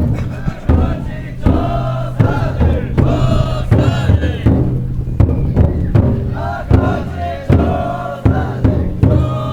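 Bearers of a festival drum float chanting together in long shouted phrases, with strokes of the float's large taiko drum and a crowd around them.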